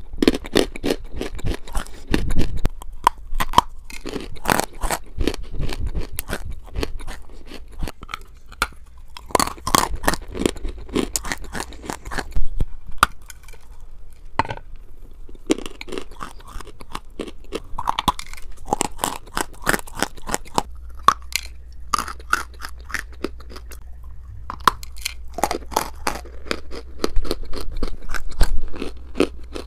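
Close-miked biting and chewing of a hard white chalky chunk: dense, continuous crunching and grinding, with sharper loud crunches every few seconds.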